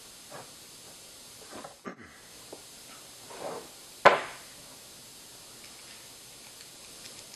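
Light handling noises on a tabletop as a screwdriver and small screws are picked up: a few soft knocks and a rustle, then one sharp click about four seconds in.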